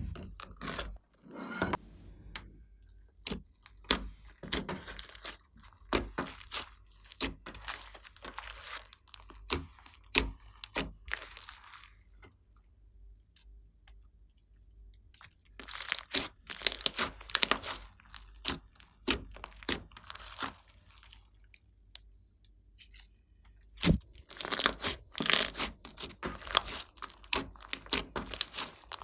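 Glossy slime being squished and stretched by hand: dense crackling and popping in three stretches, with quiet pauses of a few seconds between them.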